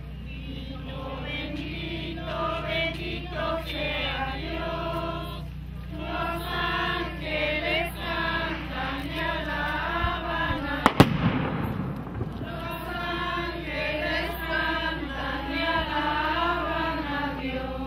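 A group of people singing a religious hymn together as they walk. About eleven seconds in, a single loud firework bang cuts through the singing.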